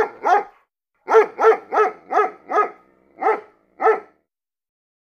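A dog barking in quick runs of about three barks a second, with a short break about a second in; the barks spread out near the end, the last about four seconds in.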